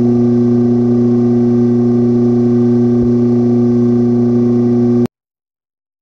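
A steady low hum with several overtones, cutting off suddenly about five seconds in.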